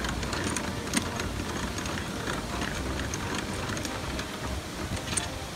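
Steady rush of water pouring through a canal lock's sluices, with a few sharp metallic clicks from the lock's paddle gear being wound with a windlass.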